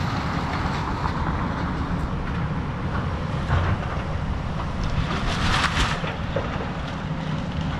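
Excavator engine running steadily under load, with louder crunching of demolition debris about three and a half seconds in and again around five to six seconds in.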